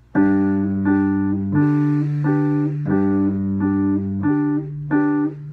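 Electric piano playing a song's intro: chords struck about every two-thirds of a second over bass notes that change every second and a half or so, starting suddenly.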